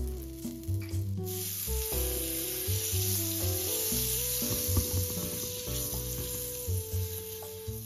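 Butter sizzling as it melts and foams in a hot nonstick pan, starting about a second in.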